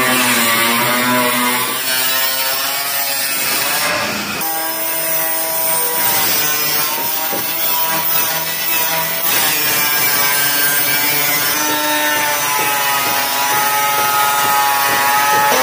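A machine motor running continuously, its pitch shifting up and down every second or two, with a brief break about four seconds in.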